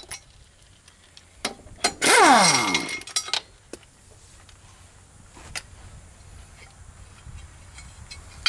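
A power tool's motor runs briefly about two seconds in and winds down in pitch. Light metallic clinks of bolts and tools come before and after it.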